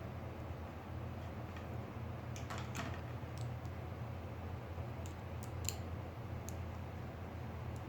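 A few scattered light clicks and taps of a laptop being handled, over a steady low hum.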